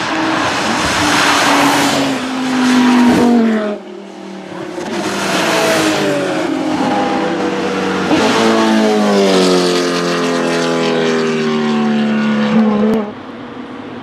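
Sports and race cars driving hard past on a wet road, engines at high revs over the hiss of tyres throwing spray. There are two passes, each with the engine note falling away as the car goes by, the second longer. The sound cuts off suddenly near the end.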